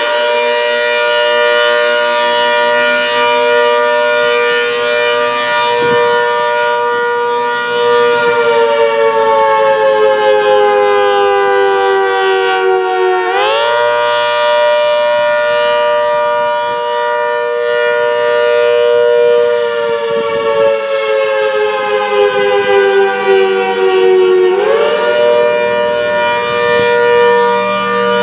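ACA Hurricane 130 MKII dual-tone warning siren sounding the Attack signal, a two-note chord that rises and falls. It holds at full pitch for about eight seconds, slowly falls for about five, then winds quickly back up. The cycle repeats, climbing again near the end.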